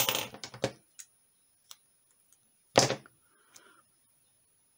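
Clear adhesive film being handled and pressed onto a small card: a brief crinkly rustle at the start, a few faint ticks, and one sharp click a little under three seconds in.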